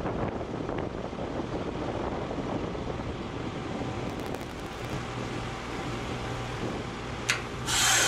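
Carrier heat pump outdoor unit running steadily with a low hum. Near the end there is a click, then a short loud rush of noise as the unit switches into defrost.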